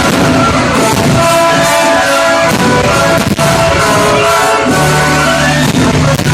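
Loud rock-style music.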